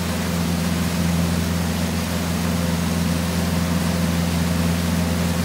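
Tow boat's engine running at a steady cruising speed, a low even drone, with a steady hiss of rushing water and wind over it.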